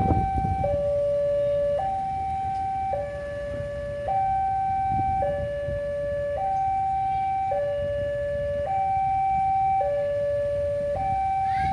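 Railway level-crossing warning alarm sounding: an electronic two-tone signal alternating high and low, each tone held about a second, repeating evenly. It sounds while the crossing barrier is down, warning that a train is approaching.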